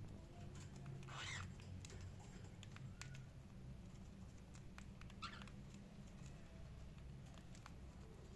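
Cockatiel giving two faint, short chirps, one about a second in and one about five seconds in, with scattered light clicks between them over a steady low hum.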